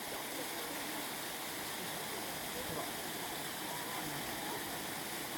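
Steady rushing noise, with faint voices in the background.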